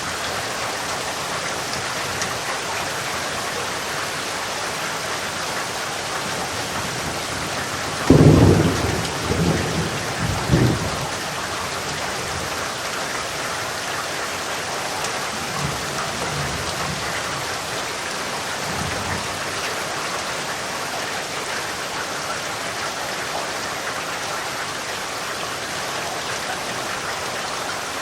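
Steady heavy rain with a thunderclap about eight seconds in: a sudden crack and low rumble lasting about three seconds, followed by fainter distant rumbles.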